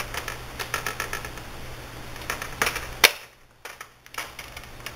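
Plastic clicks and snaps of a laptop's screen bezel being pried off its clips, with one sharp snap about three seconds in.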